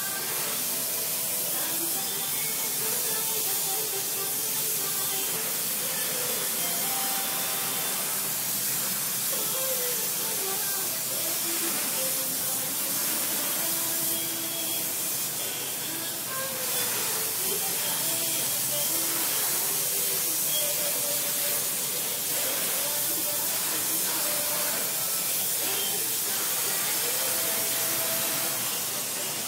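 Steady hiss with faint music and voices in the background.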